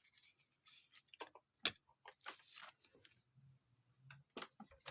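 Faint handling noises of a ThinkPad T440 laptop and its parts being moved by hand: scattered small clicks, taps and short rustles, with one sharp click about a second and a half in.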